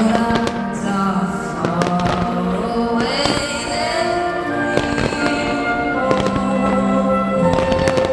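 Fireworks going off in frequent bangs and crackles over loud music with long held notes.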